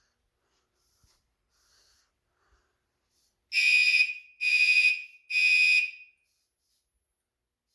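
Fire alarm sounder giving three high-pitched beeps of about half a second each, evenly spaced, about halfway through: the temporal-three evacuation pattern used by fire alarms.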